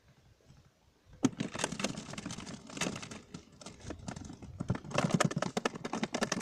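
Rapid, irregular clicking and rustling from hands handling fishing gear close to the microphone. It starts about a second in and goes on with no steady rhythm.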